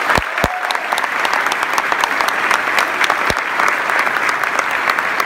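Audience applauding steadily in a large room, a dense patter of many hands clapping, with a couple of brief low thumps near the start and another about three seconds in.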